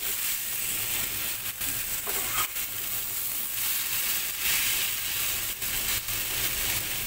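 Maggi instant noodles sizzling as they fry in a little hot oil in a non-stick frying pan, stirred and turned with a spatula that scrapes and clicks against the pan now and then.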